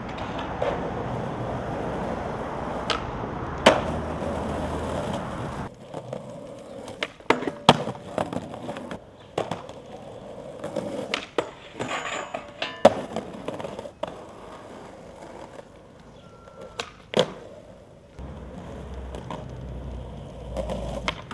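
Skateboard wheels rolling on concrete, with sharp clacks of the board's deck and tail hitting the ground. The steady rolling fills the first several seconds and returns near the end. In between comes a quieter stretch of scattered cracks.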